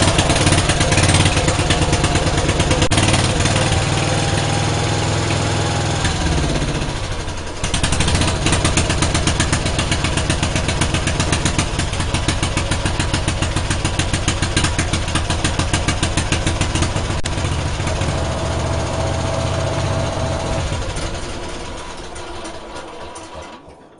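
Single-cylinder 10-horsepower Briggs & Stratton engine with a freshly rebuilt upflow carburetor running cold on full choke just after being pull-started. About seven seconds in it stumbles and nearly stalls, then picks back up and keeps running.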